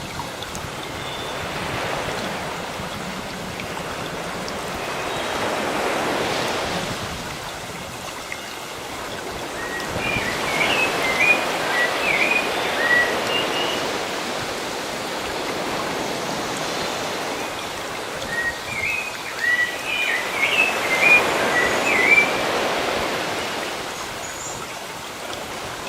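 Sea waves washing in and drawing back in slow swells. A small bird chirps over them in two runs of quick high notes, one around the middle and one toward the end.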